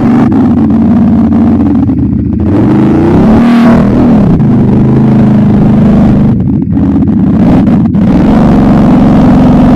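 ATV engine running loud, its revs climbing and dropping a few times as the throttle changes.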